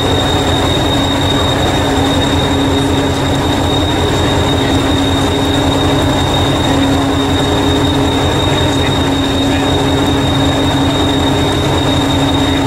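Diesel-electric multiple unit 1001, a Hastings Class 201 'Thumper', idling at the platform. It runs at a steady idle with a throbbing low end, a constant hum and a thin high-pitched whine.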